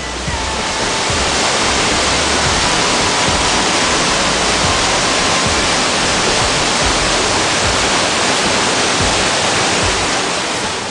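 Waterfall heard up close from behind the falling curtain of water: a loud, steady rushing of water, easing off near the end as music returns.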